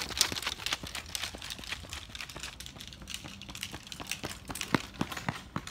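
Irregular clicks and knocks, dense at first and then sparser, with a few sharper knocks near the end: handling noise from a camera being moved, then a runner's footsteps on a paved sidewalk.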